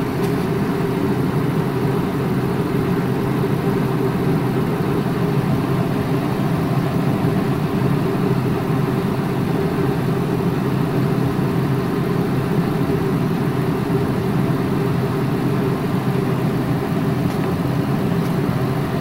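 2005 Workhorse chassis 8.1L Vortec big-block V8 idling steadily at about 770 rpm while still warm from earlier running. Meanwhile the scan tool logs a few misfires on cylinder 6.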